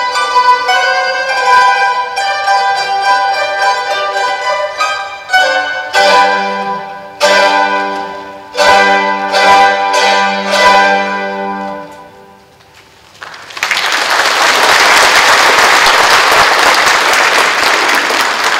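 Mandolin ensemble playing, closing the piece with a few loud struck chords and a last chord dying away. About a second later the audience breaks into applause, which continues steadily.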